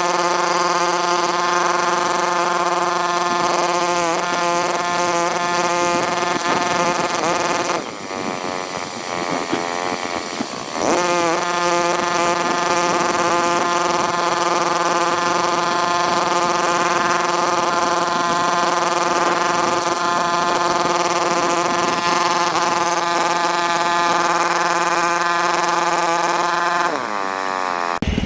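Electric gear motors of a hand-built RC bulldozer model whining steadily. The pitch dips and wavers about a third of the way in, then steadies again and slides down near the end.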